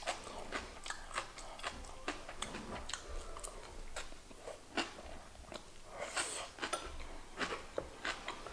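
A person chewing a mouthful of seasoned soybean sprouts (kongnamul muchim), with many small, irregular crunches.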